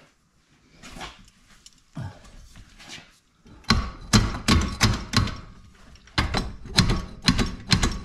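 Run of sharp metallic clanks with a ringing tail, two or three a second from about three and a half seconds in, after a few fainter knocks, as a fender-rolling tool's lever bolted to a Subaru rear wheel hub is worked back and forth. The hub bearing assembly is stuck fast in the knuckle and is being rocked to vibrate it loose.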